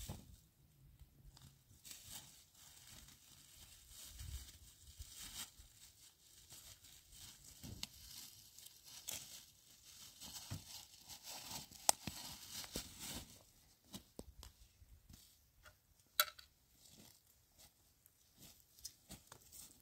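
Faint, irregular rustling and crinkling of plastic bags being handled and of dry fallen leaves being stirred, with a couple of sharp clicks in the second half.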